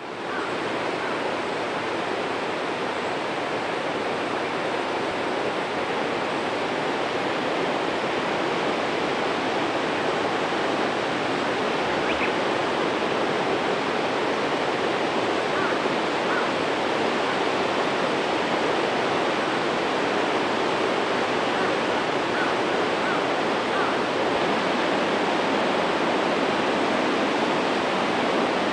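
Waterfall's steady, continuous rush of falling water, fading in at the very start.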